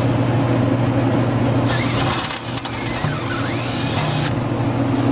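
Power drill driving a screw for about two and a half seconds, starting a little under two seconds in, its whine sliding up and down in pitch. A steady low mechanical hum runs underneath.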